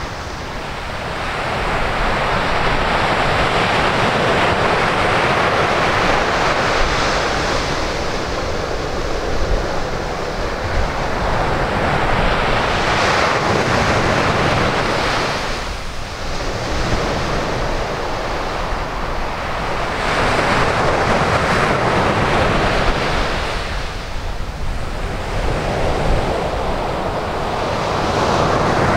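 Ocean surf breaking on a sandy beach, the wash of the waves swelling and fading about every six to eight seconds, over a low wind rumble.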